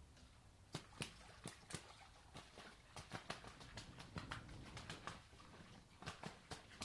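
Two drake mallards fighting on the water: faint, irregular splashing and sharp slaps of wings and bodies striking the water, starting about a second in.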